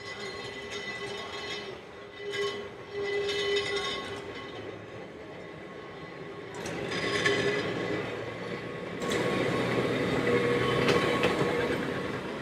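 Vintage Manx Electric Railway tramcar No. 2 and its open trailer running on rails round a curve, with wheel noise and a thin steady whine. It grows louder as the cars approach, loudest as they pass close from about nine seconds in.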